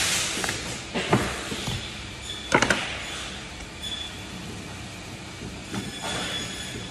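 Lamb shoulder being deboned by hand on a cutting board: scraping and rustling noises with a few sharp knocks, the loudest about two and a half seconds in.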